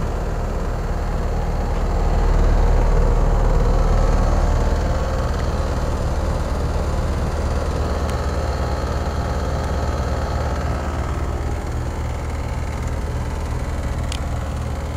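York packaged heat pump running in heating mode with its outdoor coil frozen over in solid ice: a steady low hum from the compressor and fan, described as a little bit noisy. A brief tick near the end.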